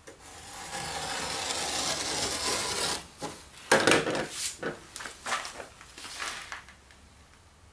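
A utility knife shaving a taper along the edge of a drywall piece: a steady scraping rasp for about three seconds. Then several sharp knocks and scrapes as the piece and the knife are handled on the wooden workbench, the loudest a little after the scraping stops.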